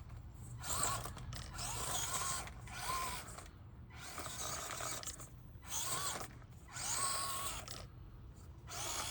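Axial SCX24 Deadbolt micro RC crawler's Injora 050 66T brushed motor and drivetrain gears whining in repeated short throttle bursts, about seven, with brief pauses between. Within each burst the pitch rises and falls as the throttle is worked.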